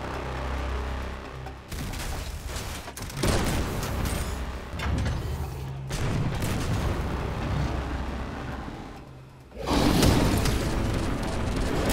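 Action-scene soundtrack: dramatic music layered with heavy booming impacts and mechanical sound effects for a robot dinosaur. The sound dips briefly, then surges back in with a loud hit just before the end.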